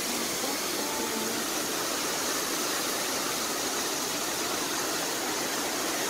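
A waterfall pouring over a long, low dam, the water rushing in a steady, unbroken noise.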